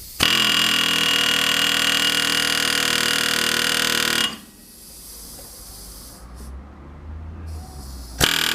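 Pneumatic air hammer rattling against a broken wheel stud in a car's rear hub, driving it out. One burst of about four seconds, then a pause, and a second burst starting near the end.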